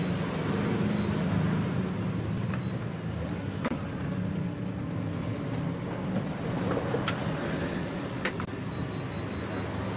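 Canon imageRUNNER office copier running a copy job, scanning and then printing: a steady motor drone with a few sharp clicks from the paper-handling mechanism.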